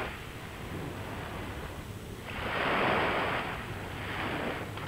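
Sea waves washing in, with one surge swelling and falling away about two and a half seconds in and a weaker one near the end, over a steady low rumble.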